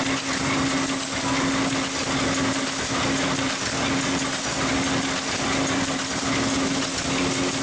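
Paper bag machine for shopping bags running at speed: steady mechanical noise from its rollers, cams and shafts over a constant hum.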